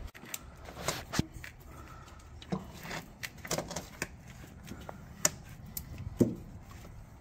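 Scattered, irregular clicks and light knocks of hand tools on metal fasteners, with a socket wrench working a small bolt under the car.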